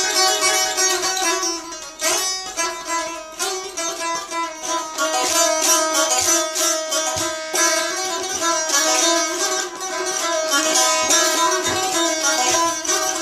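Azerbaijani saz played solo: fast plectrum strumming of a melody over steadily ringing strings.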